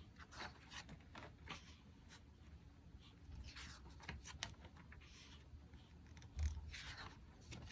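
Faint rustling and soft clicks of paper pages being turned over one after another on a desk calendar, with one soft low thump about six and a half seconds in.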